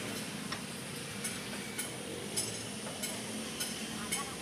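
Metal clicks from a screw jack being worked by hand under a truck, a sharp click about every half second to second, over a steady background hiss.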